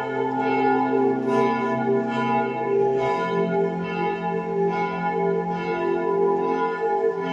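Church bells ringing with strikes about once a second, each stroke's tones ringing on into the next; the low tones shift about three seconds in.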